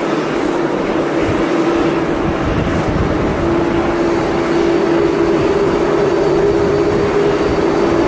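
Jet airliner engines of a Boeing 777 running steadily as it taxis onto the runway: a loud, even roar with a constant low hum.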